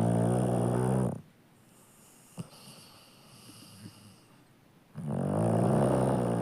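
Sleeping Labrador retriever snoring: one long snore ending about a second in, a quiet pause, then another long snore starting near the end.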